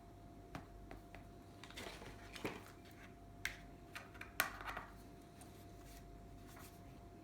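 Hands handling a keyboard and its packaging: a few scattered clicks and short rustles, the loudest about four and a half seconds in, over a faint steady hum.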